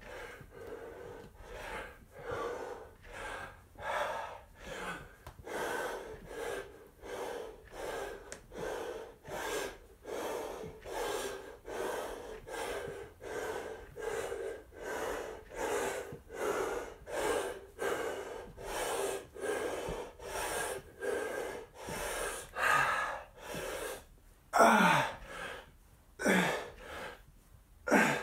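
A man panting hard and fast from the effort of bodyweight squats, in a steady rhythm of about two breaths a second. Near the end it breaks into a few louder voiced exhales that fall in pitch.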